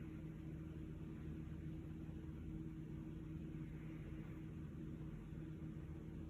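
Faint steady low hum with an even background hiss, no change in pitch or level.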